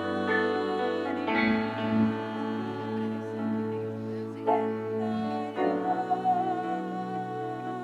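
Worship music: sustained instrumental chords with a voice singing long held notes.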